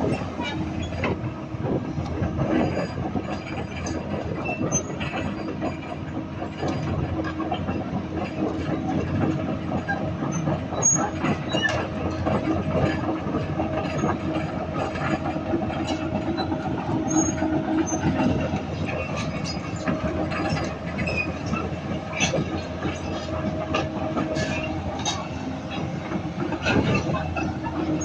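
Volvo EC360BLC tracked excavator travelling: the diesel engine and hydraulic pumps run steadily under a constant rattle of clicks, clanks and squeaks from the steel tracks. It is a test travel after the pump's oil flow was adjusted to balance the two travel motors, and the machine now tracks straight.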